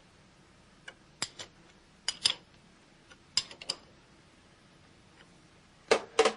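Wrench tightening the bolts that clamp a milling machine's head: scattered sharp metallic clicks and clinks, several in quick pairs, the loudest two near the end.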